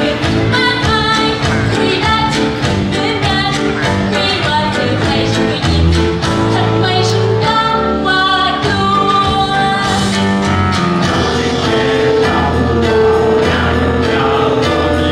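A woman singing a Thai stage-musical song over backing music with a steady beat.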